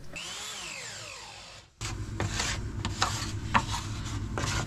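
A whine that rises briefly and then falls steadily in pitch, stopping after about a second and a half. Then rasping, rubbing strokes, irregular and a few to the second, over a low steady hum.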